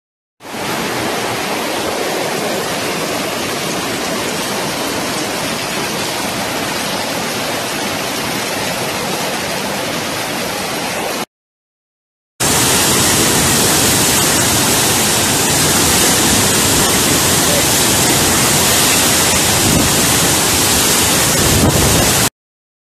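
Muddy floodwater rushing through a street, a steady heavy rush of water. It cuts off about eleven seconds in, and after a second of silence the rush of a swollen, flood-brown waterfall pouring into its pool takes over, louder and brighter, until it cuts off just before the end.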